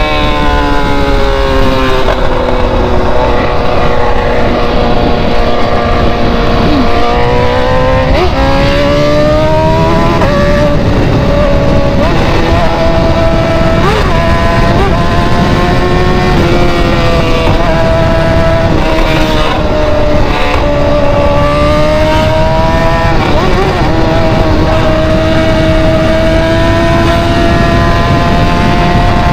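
BMW's loud exhaust note while driving. The engine's pitch sinks slowly, climbs again, then dips and recovers once more with throttle and gear changes.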